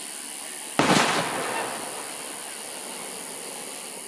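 A single aerial firework shell bursting with one sharp boom about a second in, its sound trailing off over about a second.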